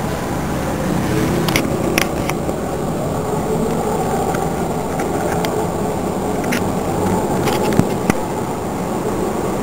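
Steady hum of city outdoor noise, like distant traffic, with a few sharp clicks about two seconds in and again near the end.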